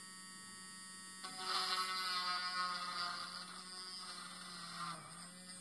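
Small handheld electric drill with a fine bit drilling a pinhole into a plastic battery shell: a low steady hum at first, then the motor's whine comes in about a second in, wavers a little while cutting and fades away near the end.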